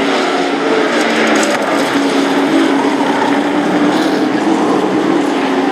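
Race truck engines running at speed on a paved short oval: a steady blended engine drone, its pitch wavering slightly as the trucks pass.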